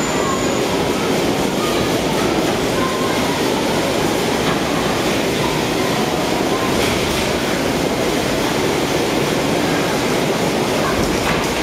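Steady running noise of electric bumper cars driving around the rink: their motors and wheels on the floor, with no pauses or big collisions.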